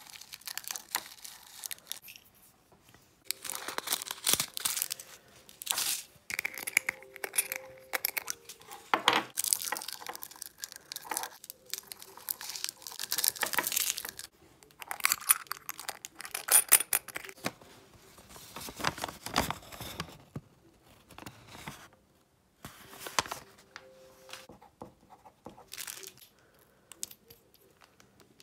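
Small plastic zip bags crinkling and rustling as resin diamond-painting drills are poured out of them into small glass jars. It comes in irregular crackly bursts with short pauses.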